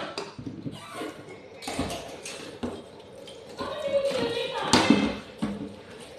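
A few scattered light taps and knocks, with a voice heard in the background around the middle.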